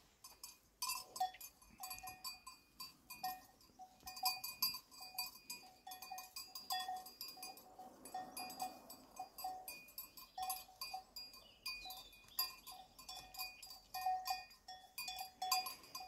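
Metal livestock bells on grazing animals clanking irregularly, several bells ringing at different pitches as the animals move.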